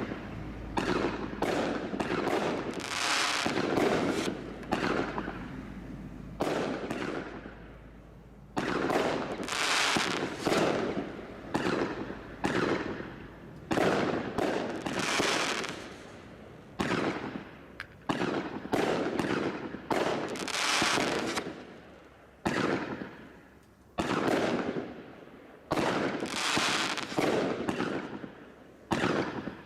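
Firework barrage cakes from Bright Star's Desert Storm Crate pack firing shot after shot, about one every second or two. Each shot starts sharply and dies away, some with a longer hissing or crackling tail.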